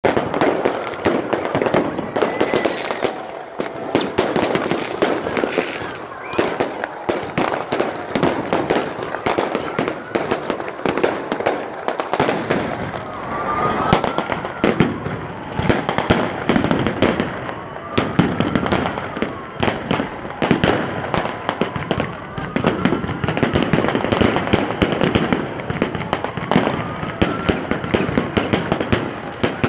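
Fireworks going off without pause: dense bangs and crackles, with several rising whistles, over a crowd's voices.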